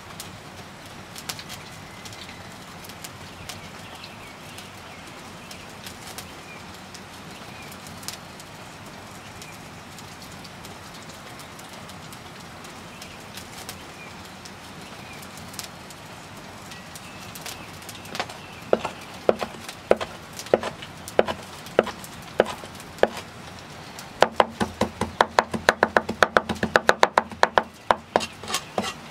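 Faint crackling of a wood fire with a few short bird chirps. Then a large knife chops dill on a wooden cutting board: a few separate cuts starting about two-thirds of the way in, then fast, steady chopping near the end.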